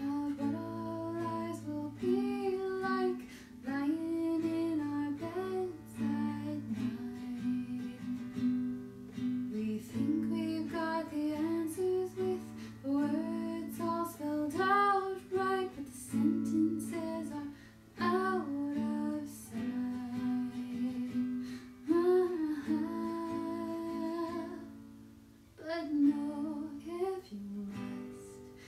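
A solo voice singing a slow song over acoustic guitar accompaniment, phrase by phrase with short pauses between lines.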